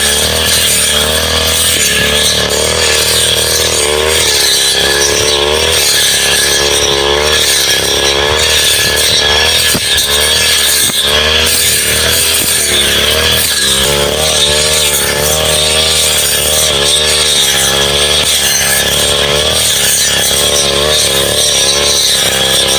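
Petrol brush cutter running at high revs, its engine pitch wavering up and down over and over as it cuts through brush and small saplings.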